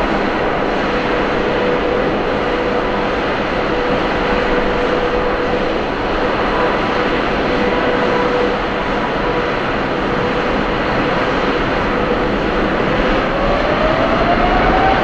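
Airbus A350-941 jet airliner's Rolls-Royce Trent XWB turbofan engines running loudly: a steady roar with a steady whine, which begins to rise in pitch about two seconds before the end.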